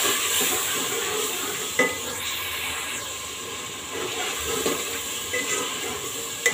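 Chicken and tomato masala sizzling in a steel pot while a metal ladle stirs and scrapes through it, frying after ginger paste has been added. A couple of sharp clinks of the ladle against the pot.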